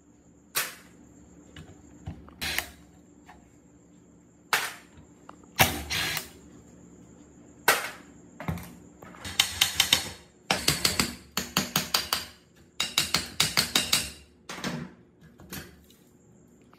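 Metal tools knocking on the parts of an old, rusted electric water pump: a few single sharp knocks, then quick runs of taps at about five a second, with pauses between.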